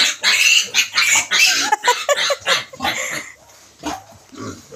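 Piglets squealing in a rapid string of short, shrill bursts, several a second, restless and agitated; the squeals thin out after about three seconds.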